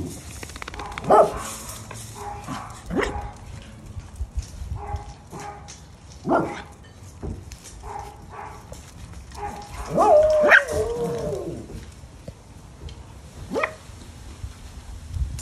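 Miniature Schnauzer puppy yipping: a handful of short, sharp yips spaced a few seconds apart, with a longer whining call that falls in pitch about ten seconds in.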